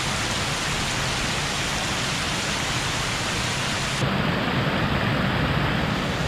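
Rushing water from a small waterfall of rain-swollen floodwater pouring over a dam: a steady, loud wash of noise. About four seconds in, the hiss loses its highest part and the low rumble gets a little stronger.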